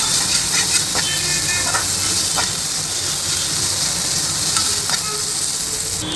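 Chopped onions, green chillies and fresh fenugreek leaves sizzling in hot oil in a metal kadai while a ladle stirs them, with a steady hiss and scattered clicks of the ladle scraping the pan.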